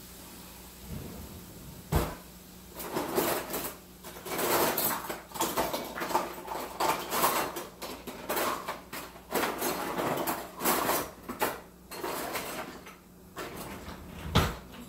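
Frying pan and kitchen utensils being handled: a sharp knock about two seconds in, then a run of irregular scraping and clattering, and another knock near the end.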